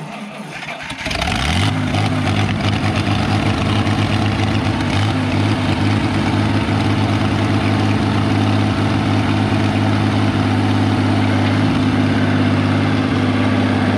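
Power Horse farm tractor engine catching about a second in after cranking, then running steadily at an even idle.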